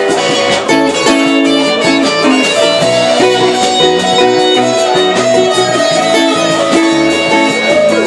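Live band playing loud music: sustained guitar notes over a drum kit keeping a steady beat.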